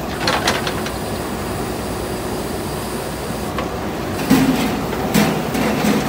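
JCB 3DX backhoe loader's diesel engine running steadily while the backhoe arm digs, with short knocks near the start and several louder clanks from the bucket and arm in the last two seconds.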